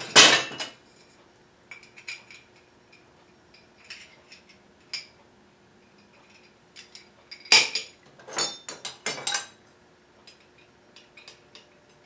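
Metal parts of a chainsaw mill kit clinking and clanking as they are handled and set down on a wooden workbench: a loud clank at the very start, scattered light clicks of bolts and brackets, then a quick run of louder clanks a little past the middle.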